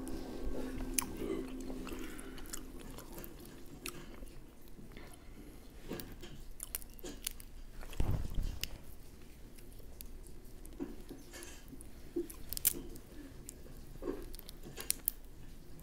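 Close-up chewing, with the small irregular crackles and clicks of boiled crawfish shells being cracked and peeled by hand. There is a dull thump about halfway through.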